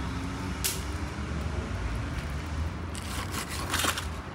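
A knife cutting through crusty spit-roasted nutria meat: a few short scrapes, one about two-thirds of a second in and two more past the three-second mark, over a steady low rumble.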